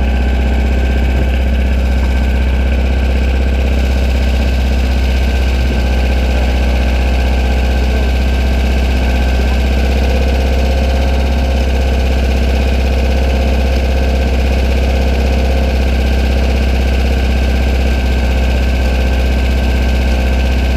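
Buggy engine idling steadily, a constant low drone with no revving.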